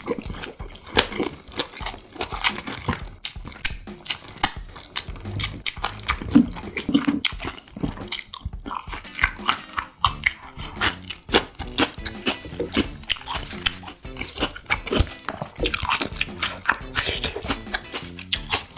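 Close-miked chewing and crunching of a mouthful of spicy marinated duck and crisp green peppers, with many sharp crunches in quick succession.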